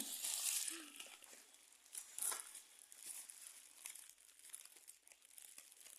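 Parcel packaging crinkling and rustling as it is unwrapped. It is loudest in the first second, with a sharper crackle about two seconds in, then fainter rustles.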